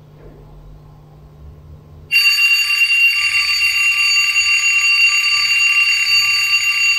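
Bell alarm clock ringing loudly. It starts suddenly about two seconds in and rings on steadily.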